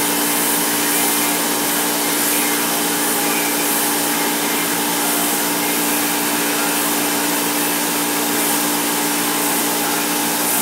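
Compressed-air paint spray gun hissing steadily as it lays a first coat of paint, with a steady hum underneath.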